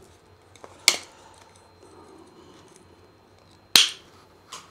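Two sharp clicks about three seconds apart as plastic filament spools are handled for loading into the feeder box, with low room tone between them.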